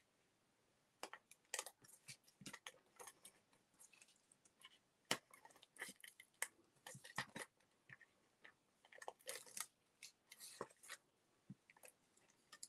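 Faint, scattered crinkles and taps of cardstock being handled and pressed together with adhesive while matting paper pieces.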